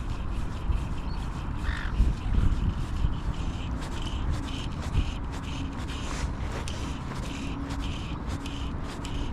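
A bird calling over and over, crow-like caws coming a little over twice a second through the second half. Low wind rumble sits on the microphone throughout.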